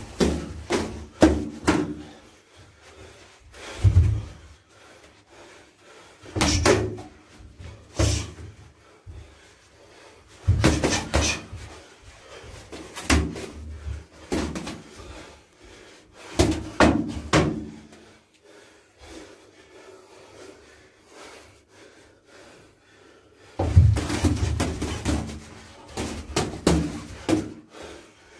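Boxing gloves smacking and heavy thuds from punches and stepping feet during sparring, in bursts of several quick impacts with quieter pauses between, the longest flurry near the end. The hits ring a little in a small, bare room.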